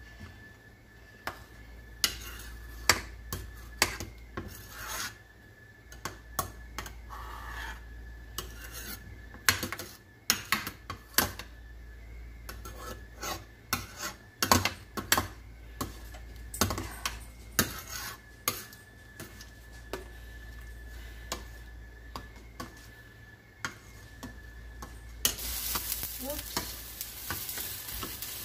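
Metal ladle stirring a stainless steel stockpot of boiling soup, with sharp clinks and scrapes against the pot. Near the end a steady hiss of the boiling pot comes up.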